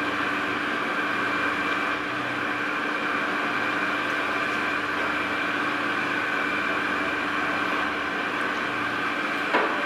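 Winery machinery running with a steady, even drone and a few steady higher tones over it, with a single short knock near the end.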